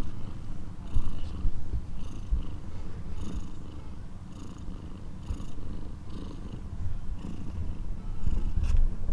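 A cat purring steadily, a low rumble with a faint rhythm about once a second, as the mother cat lies with her nursing kittens. Near the end there is a short knock or click.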